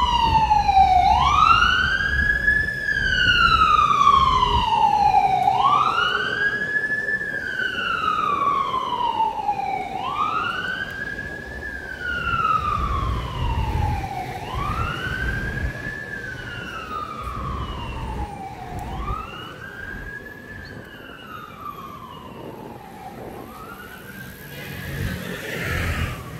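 Emergency vehicle siren wailing. Each cycle is a quick rise in pitch followed by a long, slow fall, repeating about every four and a half seconds and fading as the vehicle moves away. Low street traffic rumbles underneath, with a brief rush of noise near the end.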